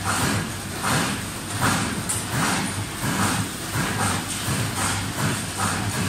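Cable tray roll forming machine running: a steady low hum with a rhythmic noisy pulse about once every 0.8 seconds.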